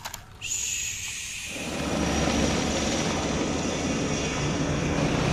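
Aircraft engine noise. A high whine comes in about half a second in, then from about a second and a half a steady, full engine noise builds and holds.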